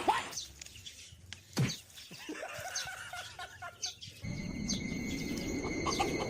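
Short bird chirps with a few sharp clicks, then a sudden change about four seconds in to a steady hiss with high, steady tones.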